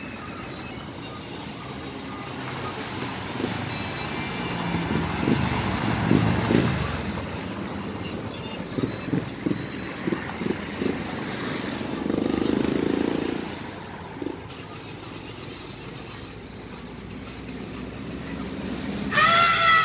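Road traffic passing a roadside spot, with the sound of vehicles swelling and fading through the middle and a quick run of sharp cracks about halfway. A high-pitched voice calls out right at the end.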